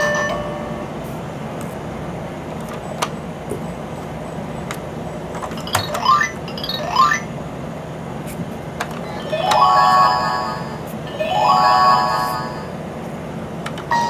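Electronic sound effects from a Crazy Legs Learning Bug baby toy's speaker: two quick rising whistle-like chirps about six seconds in, then two bright doorbell-like chime phrases around ten and twelve seconds, over a steady low hum.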